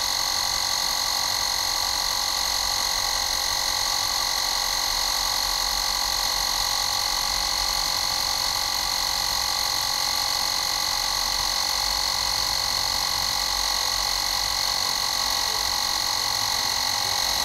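Bosch EasyPump cordless mini compressor running steadily as it inflates a bicycle tyre, a constant high-pitched motor whine with no change in pitch.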